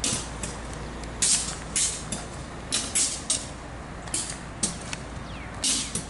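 Diesel locomotives rolling slowly past with a steady low engine rumble. Short bursts of high hiss come every second or so.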